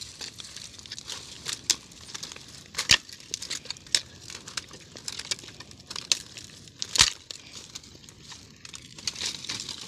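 A fire of dry twigs and sticks crackling and popping as it burns, with many small sharp clicks. Louder snaps come about three seconds in and again near seven seconds, as sticks are laid on the fire.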